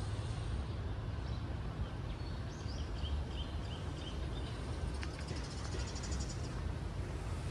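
City park ambience: a steady low rumble of distant traffic, with small birds chirping over it. There is a run of short chirps a few seconds in and a fast, high trill around six seconds.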